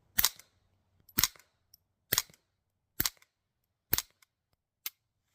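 Suppressed Ruger 10/22 Charger semi-auto .22 LR firing CCI Quiet semi-auto subsonic rounds through an Anechoic Anechox-22 suppressor: five sharp, short shots about a second apart, then a fainter click near the end. The reports are very quiet.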